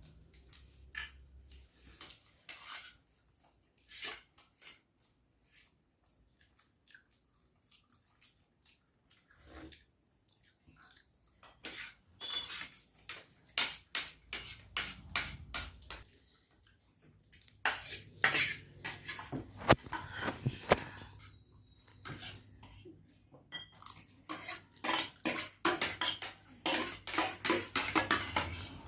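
Cutlery clinking and scraping against a dish in quick, irregular strikes while pasta is eaten fast, sparse at first and much busier from about twelve seconds in.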